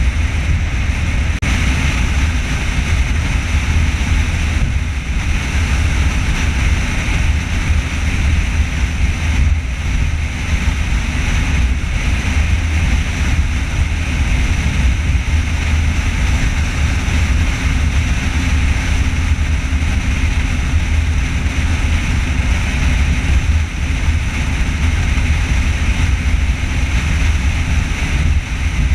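Steady road and wind noise of a car travelling at highway speed: a constant low rumble with a hiss above it, unchanging throughout.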